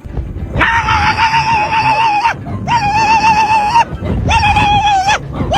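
An animal calling in four long, wavering cries of steady pitch, each lasting about a second or more, with short breaks between them.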